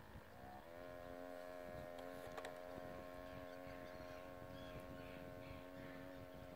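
Small electric motor of a radio-controlled model boat running with a thin, steady whine; it steps up in pitch about half a second in as the throttle opens, then holds steady. A few faint clicks come around two seconds in.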